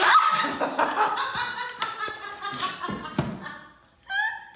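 Hearty, sustained laughter that breaks out suddenly at the start and runs for about three and a half seconds, then a short second burst of laughter about four seconds in.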